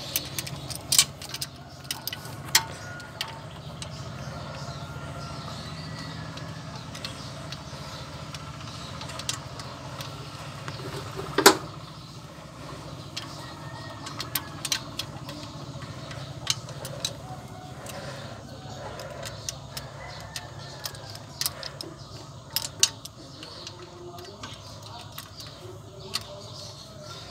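Irregular sharp metallic clicks and taps from hands and tools working parts on a Kubota diesel engine's fuel injection pump, with one louder knock about halfway through, over a steady low hum.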